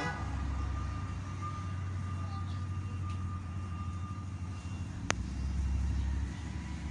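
Steady low background rumble, with a single sharp click about five seconds in.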